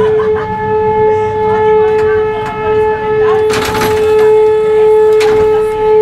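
An old tram's electric traction motor and gearing give a loud, steady whine at one pitch while the tram runs at constant speed. The wheels knock over the track twice, with a short rattling clatter about three and a half seconds in and a sharper knock about five seconds in.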